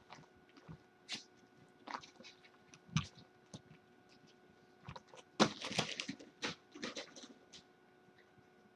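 Kittens playing on and around a carpeted cat tree: scattered light knocks, clicks and scratchy rustles, with the loudest cluster of them about five and a half seconds in.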